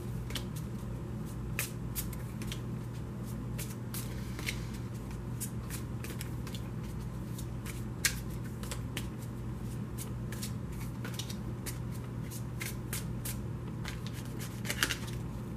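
A tarot deck being shuffled by hand overhand, cards slapping and sliding against each other in quick irregular clicks, with one sharper click about halfway through.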